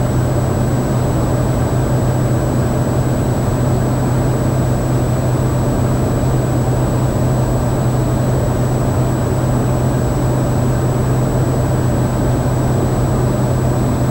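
Cessna 208 Caravan's Pratt & Whitney PT6A turboprop engine and propeller heard from inside the cockpit in cruise descent: a loud, steady deep drone with a thin high whine over it.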